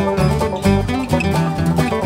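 Instrumental background music with a quick, busy run of notes.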